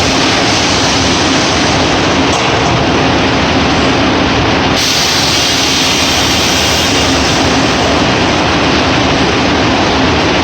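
Pellet packaging machine running with a steady, loud mechanical noise and a faint hum; a brighter hiss joins about halfway through.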